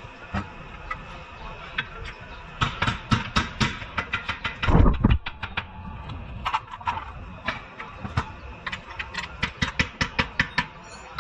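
Hand tools clicking and tapping against the car's front suspension while its lower control arm is being worked on, in quick runs of sharp clicks, with one heavy thump about five seconds in.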